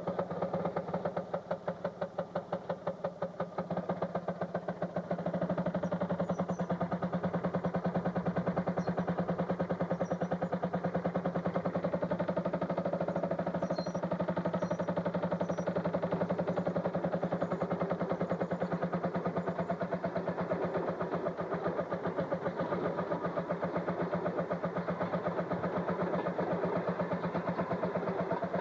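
Railroad motorcar engine running with a rapid, even popping beat, getting louder about five seconds in and then holding steady.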